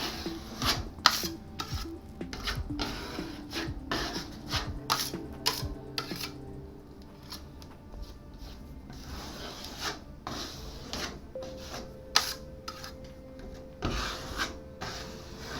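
Putty knife scraping plaster filler across a plasterboard wall patch in short, irregular strokes.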